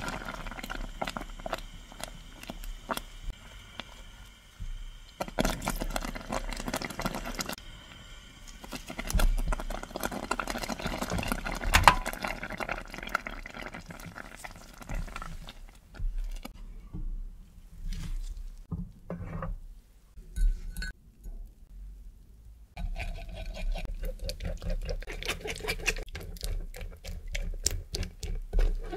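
Thick raspberry puree simmering in a stainless saucepan, bubbling and popping in many small clicks while a silicone spatula stirs and scrapes through it. Near the end, a spatula presses the cooked puree through a mesh sieve with wet scraping and squelching.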